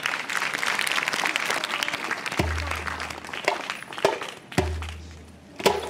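Audience applauding, then a hand drum starts a slow beat: two deep booming strokes about two seconds apart, with a few sharper slaps on the head between them.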